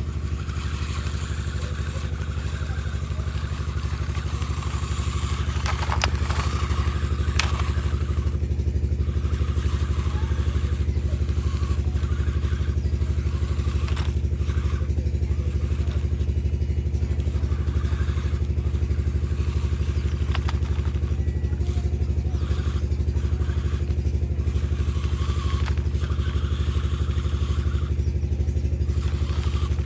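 An engine running steadily with a low hum, with a few sharp clicks and some clatter over it.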